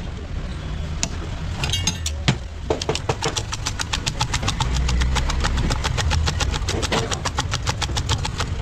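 Spiral spring whisk beating egg with chopped greens in a steel tumbler, its coil clinking against the metal several times a second, starting a few seconds in, over a steady low hum.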